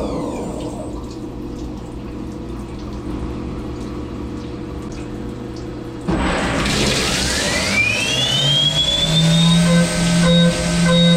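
CNC milling machine (Syil X7) with flood coolant splashing: the spindle runs on steadily, then about six seconds in it spins up with a rising whine, and from about nine seconds a tone pulses on and off regularly as the end mill cuts an adaptive-clearing toolpath.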